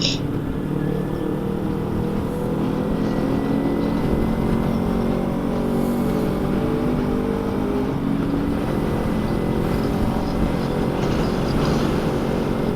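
Motorcycle engine running steadily at cruising speed, its pitch shifting slightly, with strong wind rumbling on the microphone.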